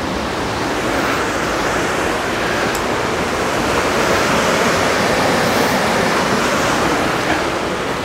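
Fast-flowing river rushing over rocks: a steady loud rush of water, a little louder in the middle.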